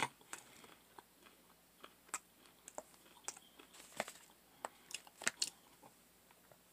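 A person chewing close to the microphone: faint, irregular clicks and smacks.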